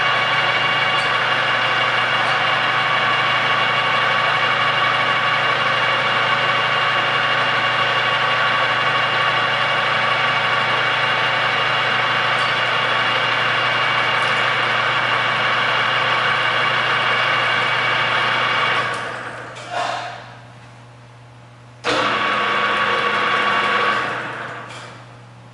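Birmingham YCL-1236GH 12" x 36" engine lathe running steadily under power, a steady hum with several level tones. About nineteen seconds in it winds down. It comes back on suddenly a few seconds later and winds down again near the end.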